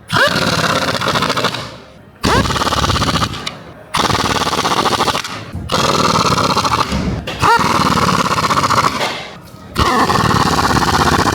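Pneumatic air impact wrench hammering bolts home, in about six runs of one to two seconds with short pauses between. Several runs open with a rising whine as the air motor spins up before the rapid hammering sets in.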